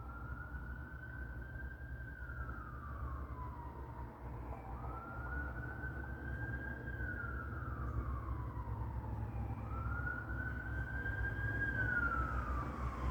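Emergency vehicle siren in a slow wail, rising and falling about three times and getting gradually louder, over a low rumble.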